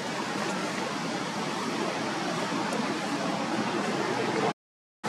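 Steady rushing noise with no distinct events, dropping out to complete silence for about half a second near the end.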